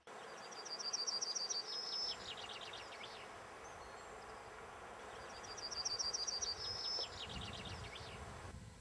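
A songbird singing the same song twice, about five seconds apart: each phrase a quick run of high notes that falls away in a descending series, over a steady outdoor hiss. A low rumble comes in near the end.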